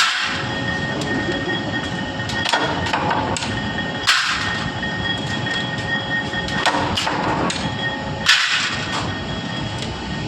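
Machinery running steadily with a whine, with sudden metal clanks and knocks about every two seconds, typical of parts being handled on a production line.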